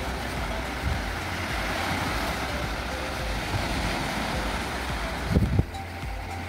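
Small waves washing onto the shore, with wind rumbling on the microphone. A brief low thump about five seconds in.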